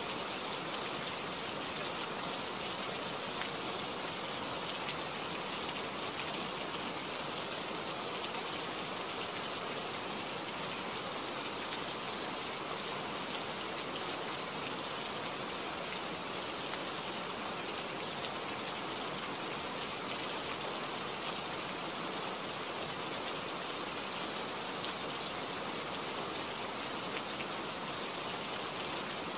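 Steady rain falling, an even hiss with many single drop hits, unchanging throughout.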